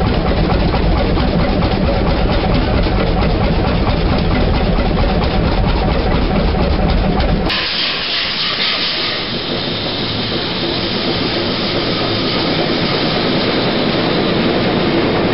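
Lidan hot-bulb semi-diesel engine running steadily, its sound heavy in the bass. It cuts off abruptly about halfway through and a loud hiss takes over, easing after a few seconds, with a low hum coming in beneath it.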